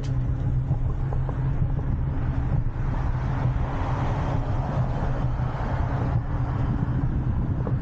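Steady hum and rumble of a Jetson Bolt Pro electric bike riding along a concrete sidewalk, with wind rushing over the microphone that grows louder around the middle.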